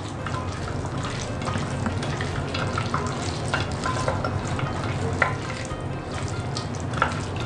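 Raw chicken pieces being hand-mixed with salt and cornstarch in a glass dish: wet squelching and many small sticky crackles as the meat is turned over.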